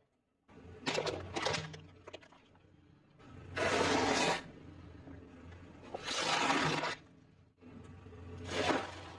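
A car tyre rolling over and crushing sealed snack packets and fried snack sticks on concrete: crackling crunches about a second in, then three loud crunching bursts of about a second each as the bags and food are flattened, over a steady low hum.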